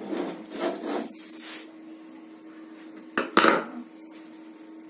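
Plastic housing of a water purifier rubbing and scraping as its cover is handled, with one louder scrape about three and a half seconds in. A faint steady hum runs underneath.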